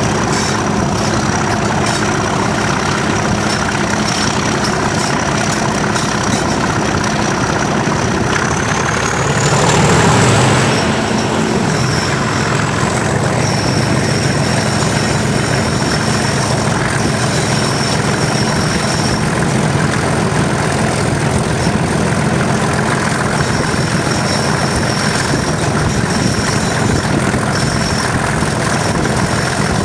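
English Electric 12CSVT V12 diesel of a Class 37 locomotive running under power, heard close from the cab side window. A high turbocharger whistle rises in pitch about nine seconds in, and the whole sound briefly swells louder around ten seconds.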